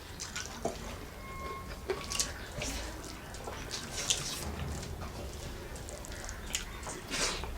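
Wet eating sounds of a meal of rice, dal and chicken: chewing with short smacks and slurps coming every second or so, and a few small clicks.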